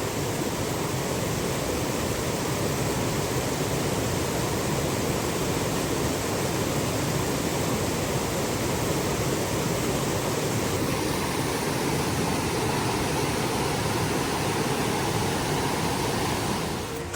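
Rushing stream water, a steady even rush that drops away just before the end.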